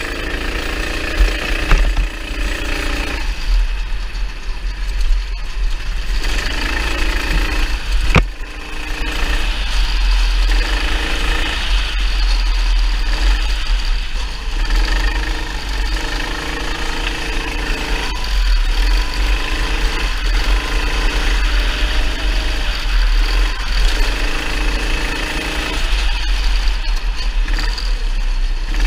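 Go-kart engine running under way, heard from a camera mounted on the kart, its speed rising and falling with the throttle over a heavy low rumble.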